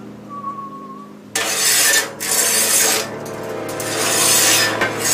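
Background music with steady held tones and a short high tone near the start. From about a second and a half in, a loud rushing hiss comes and goes in surges over the music.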